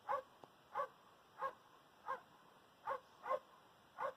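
Faint short animal calls repeating at a steady pace, about seven in a row roughly two-thirds of a second apart, some coming in quick pairs.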